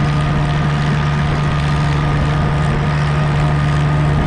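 Small tractor's engine running at a steady speed with a constant drone while driving along a road.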